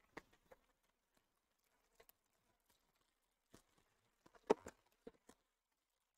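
Foil trading-card packs and a plastic-wrapped card box being handled: scattered faint taps and crinkles, the loudest about four and a half seconds in.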